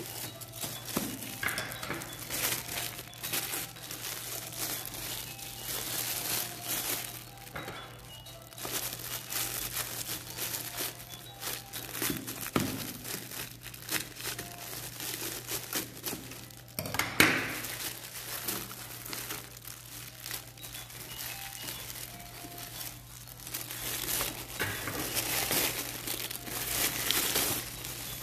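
Plastic wrapping crinkling and rustling as it is handled and pulled off a packaged item, in irregular bursts with a loud crackle about 17 seconds in.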